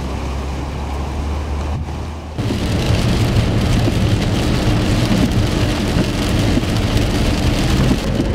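Low wind rumble on the microphone, then a sudden change about two and a half seconds in to heavy rain beating on a moving car's windshield and body, with road noise and a faint steady hum under it.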